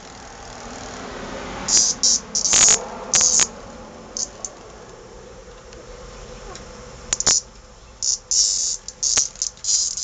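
A cicada buzzing very loudly in about a dozen short, harsh bursts, each under half a second: one cluster about two seconds in, a pause, then a quicker run near the end. These are the alarm buzzes of a disturbed cicada as a kitten paws at it.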